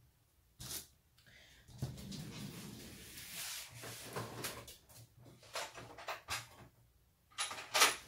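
Handling noises on a tabletop: rustling and scraping with a few sharp knocks, the loudest cluster near the end, as a vinyl sheet on a cutting mat and craft tools are moved about.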